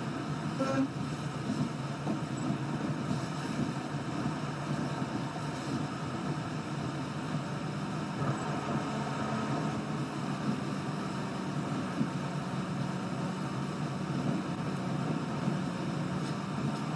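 Steady road and engine noise of a car driving, heard from inside the cabin: a continuous low rumble with tyre hiss. A short pitched blip sounds less than a second in.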